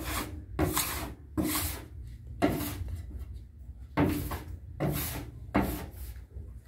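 Metal bench scraper scraping across a floured stainless-steel worktable in a run of short strokes, about eight of them with a brief pause midway, gathering loose dough scraps.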